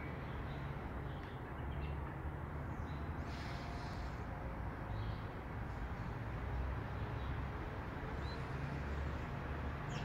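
Steady outdoor background of low rumble and hiss, with a few faint, short, high bird chirps scattered through.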